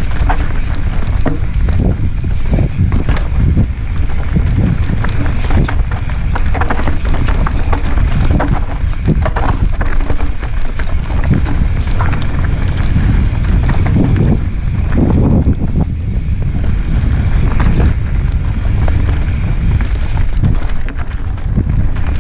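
Mountain bike rolling fast down a dirt singletrack, with wind buffeting the helmet-mounted microphone in a steady low rumble. Throughout, the tyres and bike frame clatter and knock over roots and rocks in quick irregular raps.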